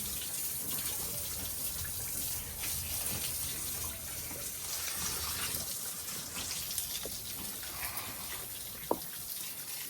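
Water running steadily, a continuous splashing hiss, with one short sharp click about nine seconds in.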